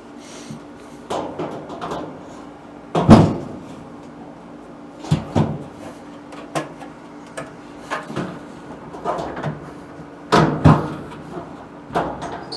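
Irregular knocks and clunks of metal dryer cabinet parts being handled and fitted back together during reassembly. The loudest are a double clunk about three seconds in and another pair about ten seconds in.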